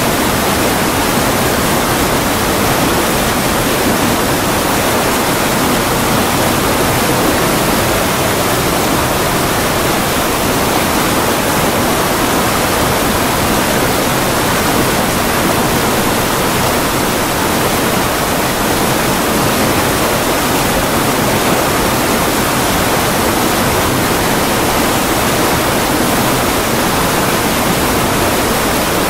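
Water pouring through the openings of a sluice weir and churning into the pool below: a loud, steady rush that does not change.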